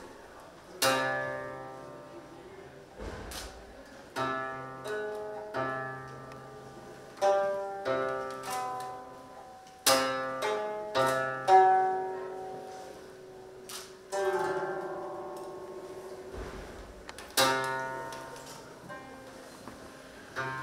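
Music on a plucked string instrument: sparse chords, each struck suddenly and left to ring and fade, with a quicker run of notes in the middle.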